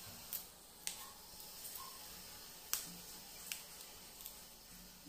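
Red chillies being snapped and torn apart by hand: about four faint, sharp snaps at uneven intervals, with a few softer ticks between them.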